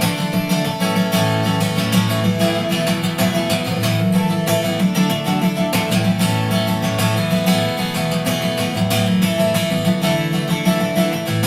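Acoustic guitar music, strummed, played back through a Sony SRS-XB3 portable Bluetooth speaker.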